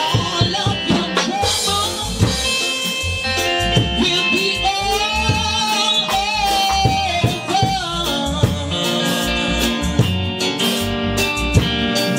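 A woman singing a gospel song over keyboard and band accompaniment, holding one long note about halfway through.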